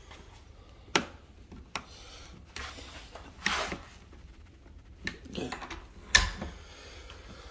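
Several sharp clicks and knocks, the loudest about six seconds in, with short rubbing and scuffing noises between them in a small room.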